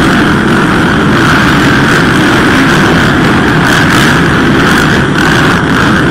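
Small two-stroke engines of 65 cc and 85 cc motocross bikes racing, loud and steady throughout.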